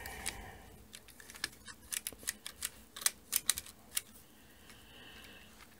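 Needles of an LK150 plastic-bed knitting machine being moved by hand, a run of light, irregular clicks like typing that thins out after about four seconds.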